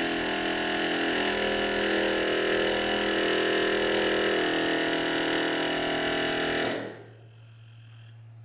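Pneumatic air chisel (air hammer) with a 3/4-inch socket on its bit, hammering rapidly and steadily on a copper ground rod to drive it into the ground. It stops suddenly about seven seconds in, leaving a low steady hum.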